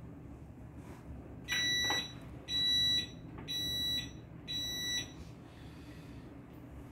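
Power wheelchair's electronic beeper sounding four steady high-pitched beeps, each about half a second long and about a second apart, while the chair is driven with its joystick.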